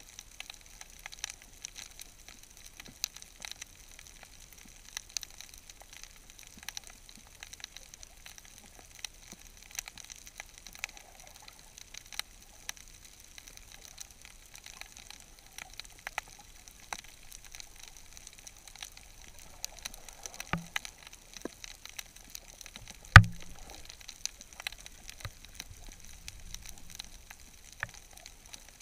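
Underwater reef ambience heard through a GoPro housing: a steady, irregular crackle of sharp clicks, typical of snapping shrimp. About two-thirds of the way through comes one much louder sharp knock with a brief low ring.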